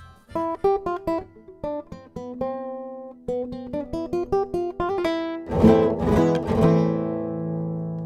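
Nylon-string classical guitar played through a freshly installed Shadow Nanoflex NFX-AC under-saddle pickup: a run of single plucked notes, then a few strummed chords about five and a half seconds in, the last one ringing out.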